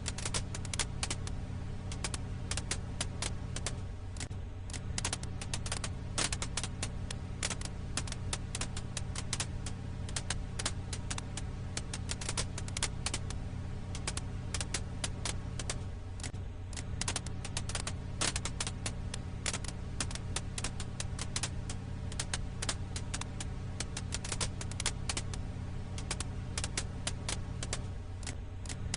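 Firewood crackling on a campfire ambience track: dense, irregular pops and snaps over a steady low rumble. The rumble dips briefly about every twelve seconds as the recording loops.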